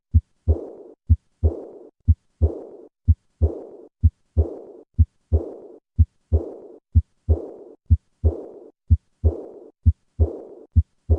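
Recorded heart sounds of aortic regurgitation: a steady beat about once a second, each beat followed by a fading, blowing diastolic decrescendo murmur. It is heard at the lower right of the sternum, where it suggests aortic root disease such as an aortic aneurysm.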